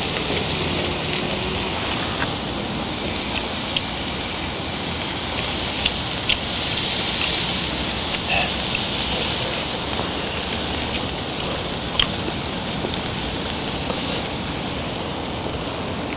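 Thin slices of marbled beef sizzling steadily in a hot pan, with short pops and crackles scattered through it.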